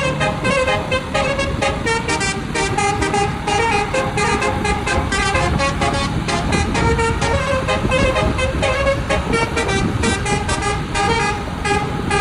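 Basuri telolet bus horn, a multi-trumpet horn playing a fast tune of short toots that keep jumping in pitch, with a low rumble underneath.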